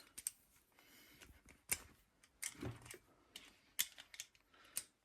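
Faint, scattered small metallic clicks and taps of a hand tool working at a stuck bolt, about eight irregular clicks.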